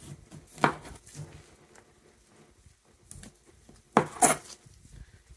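Sharp knife trimming a dry-aged beef striploin: a single sharp tap about half a second in, a few faint ticks, then a short slicing scrape near the end.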